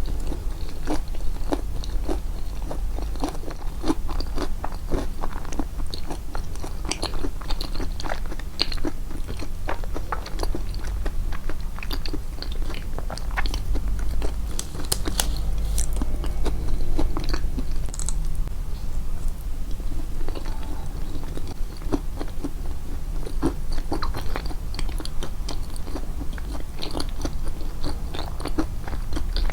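Close-miked chewing of walnut and banana yoghurt cake: moist chewing with many short, irregular crunches from the walnut pieces, over a steady low hum.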